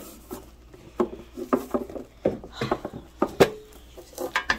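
Metal Pokémon card tin being handled on a table before opening: a run of sharp clicks and knocks at uneven intervals, the loudest about three and a half seconds in with a brief metallic ring.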